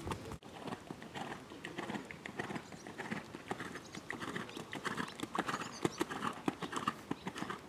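Hoofbeats of a ridden Holsteiner gelding on a sand arena, a run of dull irregular thuds as the horse trots and canters.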